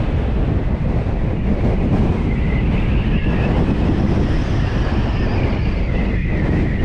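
Strong wind buffeting the microphone in a steady low rumble, with a faint wavering whistle above it from about two seconds in.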